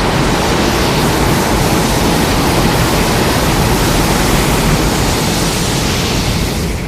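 Loud, steady rushing noise like static, without any tone or rhythm, starting suddenly and fading out near the end.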